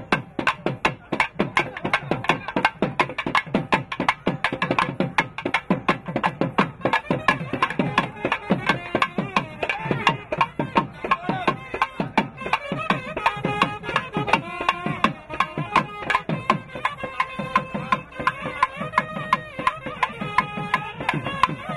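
Thavil barrel drum beating a fast, dense rhythm of sharp strokes. About eight seconds in, a nadaswaram joins with a held, wavering reed melody over the drumming.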